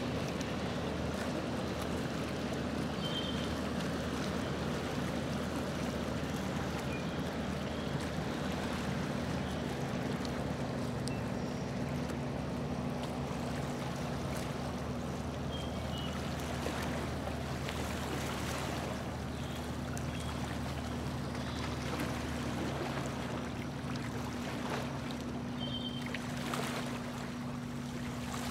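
Tour boat's motor running steadily under way, a constant low hum, with water rushing along the hull.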